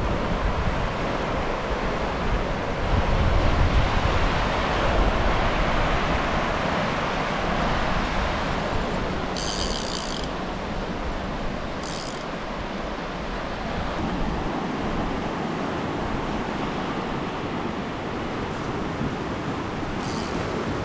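Waves breaking on a sand beach, with wind on the microphone; the surf swells louder a few seconds in. A couple of short high-pitched chirps sound about halfway through.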